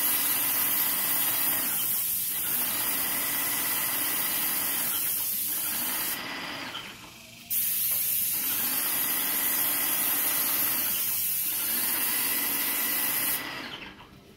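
Airless paint spray gun spraying with a steady, loud hiss. The trigger is let go briefly about six seconds in, then the spray resumes and stops near the end.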